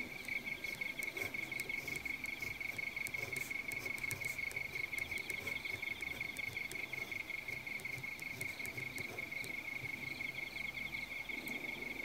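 Crickets chirping in a steady, high, rapidly pulsing trill.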